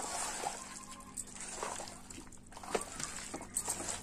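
Spice-coated raw mango pieces being tossed and turned by hand in a plastic tub: irregular soft clicks and squelches as the pieces knock together and against the tub's sides.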